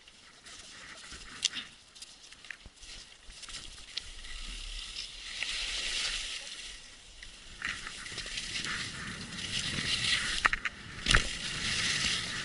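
Skis sliding and scraping over packed snow, the hiss getting louder as speed builds, with a few sharp knocks.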